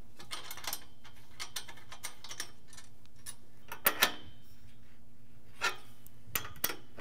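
Light metal clicks and clinks of a tripod's leg brackets and screws being turned and tightened by hand, with two sharper clicks about four seconds in and a few more near the end, over a steady low hum.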